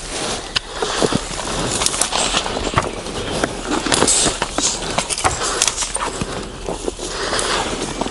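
Footsteps through forest brush, with irregular cracking of twigs and branches underfoot.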